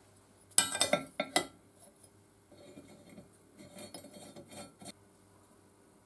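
Loose steel parts of a Beverly metal shear clinking and rattling as they are fitted together by hand. A few sharp metallic clinks come about half a second in. They are followed by softer rattling and scraping as the bolted bracket is worked onto the frame.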